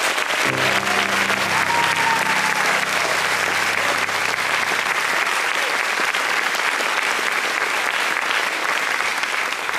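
Theatre audience applauding steadily at the end of a song. The last held chord of the accompaniment fades out under the clapping during the first few seconds.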